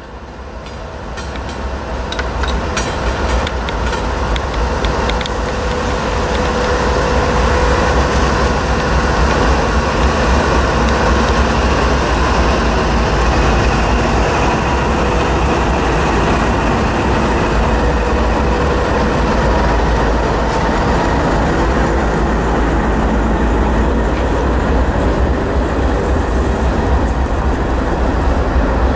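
Freight train passing close by: the lead CN ET44AC diesel-electric locomotive's engine rumble grows louder over the first several seconds, then a steady heavy rumble of a trailing locomotive and of covered hopper cars rolling past on the rails.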